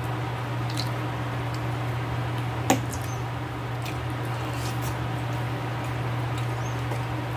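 Close-miked eating sounds: wet chewing and mouth noises as a forkful of meat-and-vegetable stew is eaten. A single sharp click comes a little under three seconds in. A steady low hum runs underneath.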